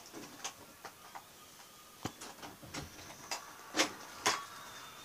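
Scattered light clicks and taps from hands handling and tapping a smartphone, irregular, with two louder knocks around four seconds in.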